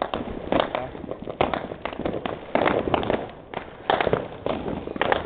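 Firecrackers and fireworks going off in many sharp bangs at irregular intervals.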